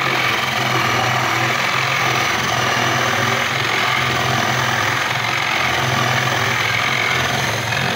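Cordless drill running steadily under load, boring a cup-hinge recess into a wooden kitchen cabinet door with a hinge-boring bit.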